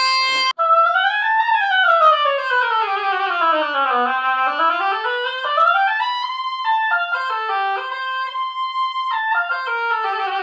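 Oboe played to test a reed just adjusted. A brief held note, then after a short break a series of smooth scale runs that sweep down, climb back up, step through separate notes and run down again.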